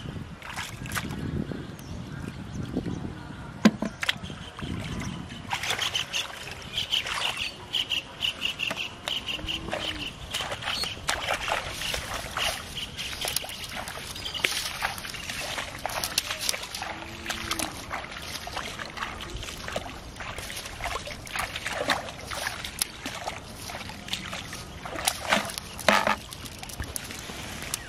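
Splashing and sloshing in shallow muddy water as hands scoop and feel through it and bare feet wade, with many short splashes throughout. A thin, steady high sound runs in the background for a few seconds from about five seconds in.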